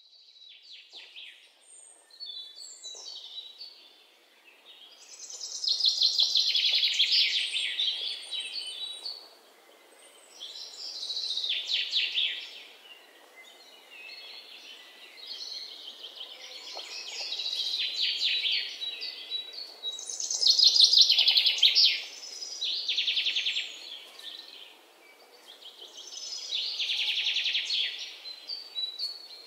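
A flock of waxwings giving high, buzzy trilling calls together. The calls swell and fade in waves every few seconds.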